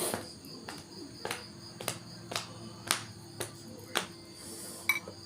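A series of short sharp taps, about two a second, over a faint steady hum.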